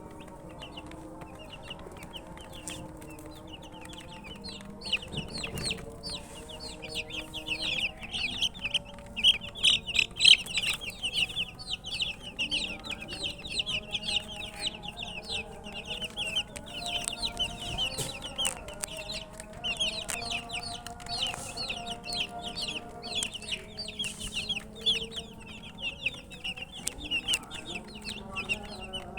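Many baby chicks cheeping, a dense stream of short, high, falling peeps that overlap and grow busier a few seconds in. The uploader puts the chirping down to the chicks being thirsty for drinking water.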